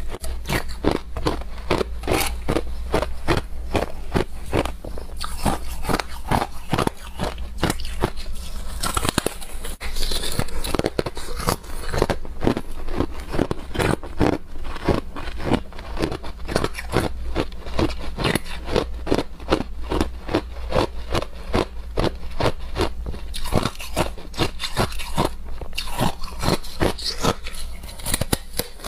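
Clear ice being bitten and crunched between the teeth close to a clip-on microphone: a steady run of sharp cracking crunches, about three a second.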